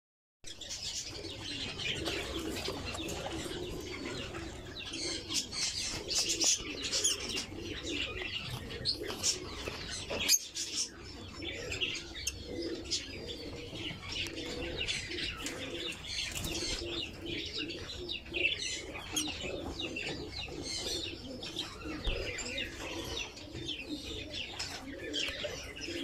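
Caged lovebirds chirping and chattering continuously, a dense high twittering, with a lower repeated call running beneath. A single sharp knock about ten seconds in.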